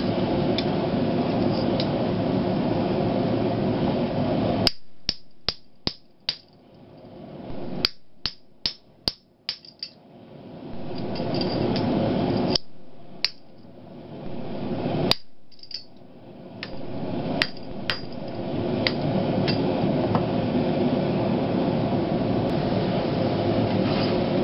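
Hammer blows on steel at the anvil, in quick runs of five or six strikes and then single strikes. They fall in the middle, between stretches of steady rushing noise at the start and end.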